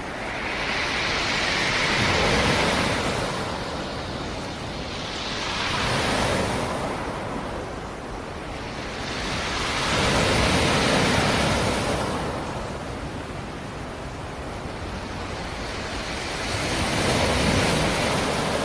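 Sea surf: waves breaking and washing back, four swells of rushing water a few seconds apart.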